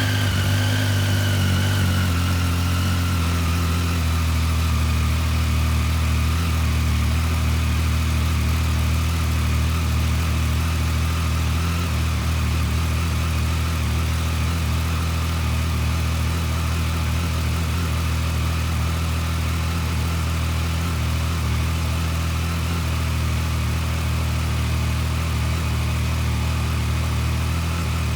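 Triumph Street Triple 765's inline three-cylinder engine idling steadily through its standard exhaust, just after a start. The idle eases down a little in the first few seconds, then holds even.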